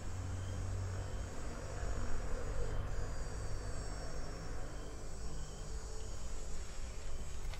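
Insects shrilling in a steady high drone, with a short chirp repeating about every half second in places, over a low rumble.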